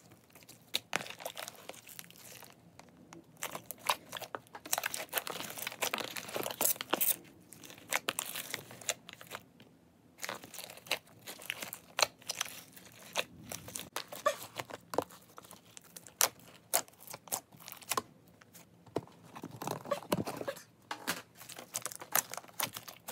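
Large mass of mixed slime being squeezed and kneaded by hand, giving irregular wet squelches, pops and crackles throughout.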